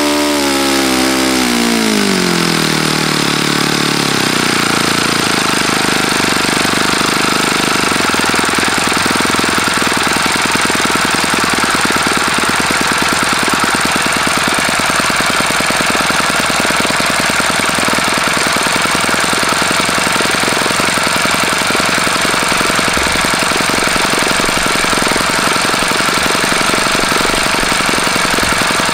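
OS FS-48 Surpass four-stroke glow engine turning a Xoar 12x6 propeller at high speed. It comes up to speed in the first few seconds, then runs steadily at around 12,500 rpm. The engine has bad bearings, by the owner's account.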